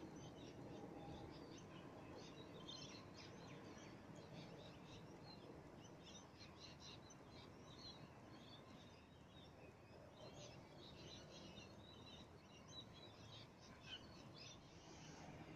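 Faint chirping of small birds, many short calls scattered throughout, over a low steady background rumble.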